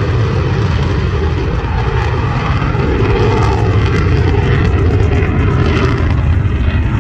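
Military fighter jet's engine noise during a display flight: a loud, steady rumble with no break.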